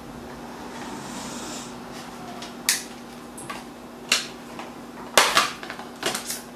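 Sharp clicks and snaps of a 7-inch tablet's back cover being pried open with a small screwdriver: single clicks, then a quick cluster of clacks near the end as the metal back panel comes free.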